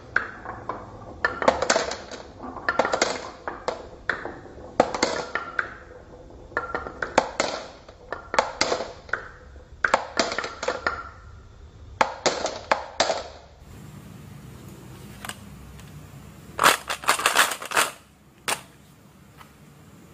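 Glass marbles rolling and clacking down a wooden marble run and dropping into a plastic toy teapot, in clusters of sharp, ringing clicks about every second and a half. Near the end, after a quieter stretch, there is a short burst of clatter and then a single click.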